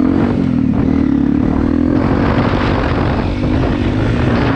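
Single-cylinder dual-sport motorcycle engine running steadily under throttle. From about two seconds in a rushing wind and rough riding noise builds over it.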